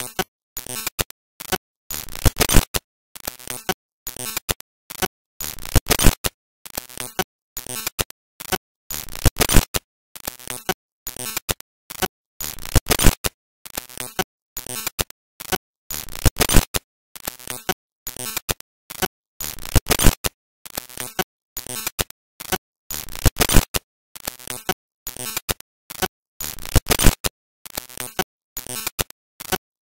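Choppy electronic background music: short noisy hits with dead silences between them, the pattern repeating about every three and a half seconds.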